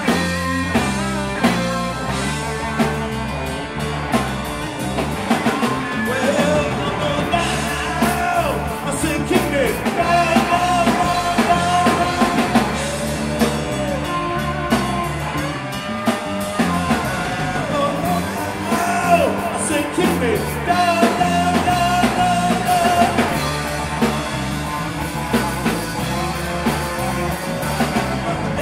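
Live rock band playing: drum kit, bass and electric guitars, with a lead line of bent, held notes over a steady beat.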